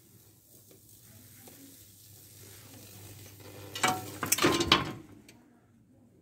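High-voltage Lichtenberg wood-burning discharge sizzling and crackling as it creeps across wet wood, over a low steady hum and slowly getting louder. About four seconds in it flares into a loud burst of crackling arcing that stops abruptly about a second later.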